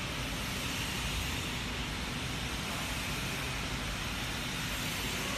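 Steady hiss over a low rumble from an automatic roller welding machine at work, unbroken and even in level.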